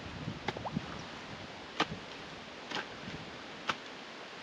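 A digging tool striking wet soil four times, about a second apart, while cutting a drainage ditch.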